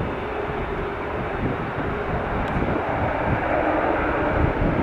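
Jet airliner engines running: a steady rush with a faint hum in it, growing slightly louder near the end.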